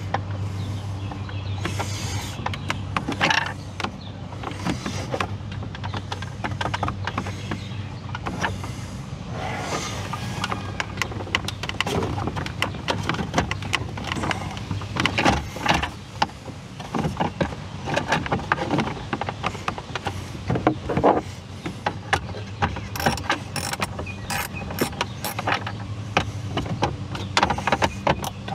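Stuck plastic center-dash trim panel of a 2016 Ford F-150 being pried and worked loose by hand: a run of irregular clicks, knocks and rattles from the panel and its retaining clips, over a steady low hum.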